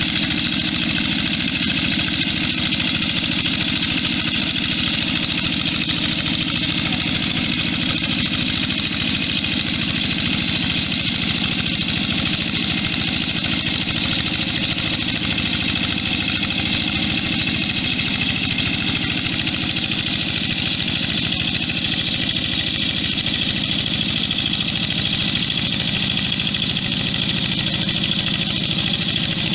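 Yanmar hand tractor's single-cylinder diesel engine running steadily while it plows.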